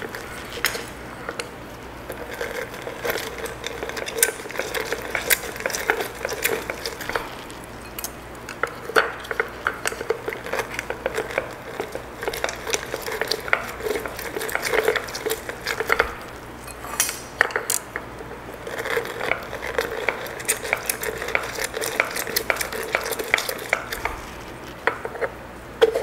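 Lemon halves twisted and pressed by hand on a plastic citrus reamer set on a glass jar: continuous squishing and rubbing with frequent small plastic clicks and knocks.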